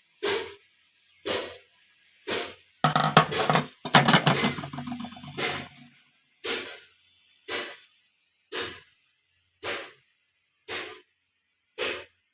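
Hammer blows on a sickle blank being forged from an iron rod, struck at a steady pace of about one a second. About three seconds in comes a louder, busier flurry of rapid ringing metal strikes lasting around two and a half seconds, before the steady blows resume.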